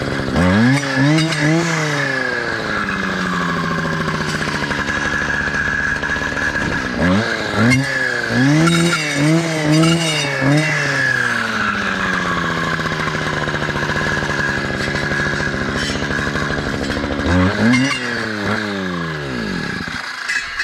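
Two-stroke clearing saw with a circular blade running near idle and revved up and down in short bursts as it cuts saplings and brush. The revs come in three groups: about a second in, a longer run in the middle, and near the end.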